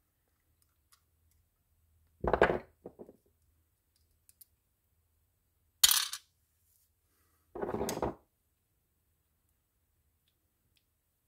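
Three short clinks and knocks of a screwdriver and small metal reel parts being handled and set down, about two, six and eight seconds in. The middle one is the sharpest.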